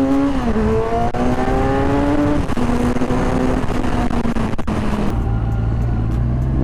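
Kawasaki Z1000 R Edition's inline-four engine heard while riding, its pitch rising under throttle with a brief dip about half a second in, then climbing again and holding. About five seconds in it drops to a lower, deeper drone.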